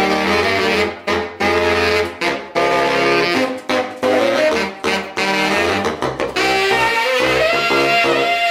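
Tenor and baritone saxophones playing a fast, syncopated riff together in short phrases with brief gaps between them. About six seconds in, the line becomes more continuous, with longer held notes.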